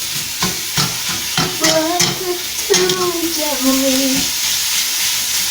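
Beef and onions sizzling in a frying pan while a spatula stirs and scrapes, breaking up the meat, with scattered knocks of the utensil against the pan.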